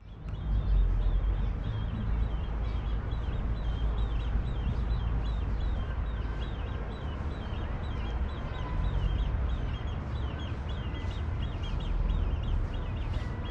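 A bird calling over and over in short, high chirps, about three a second, over a steady low rumble.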